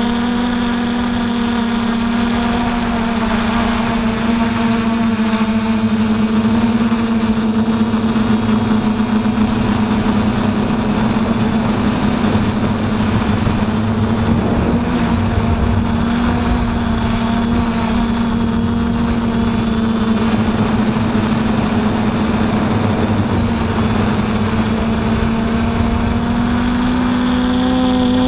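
DJI F450 Flamewheel quadcopter's electric motors and propellers running in flight, recorded by the camera on the craft: a steady buzzing hum, with higher tones drifting up and down as the motor speeds change.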